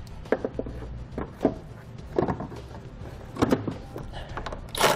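Plastic taillight assembly of a 2012 Jeep Liberty knocking and clicking as it is fitted back into its mounting in the body. Scattered short knocks, with the loudest one at the very end.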